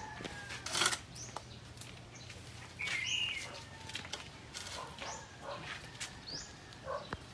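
Birds chirping: a few short, high calls that slide in pitch, spaced a second or two apart, with a few faint sharp clicks in between.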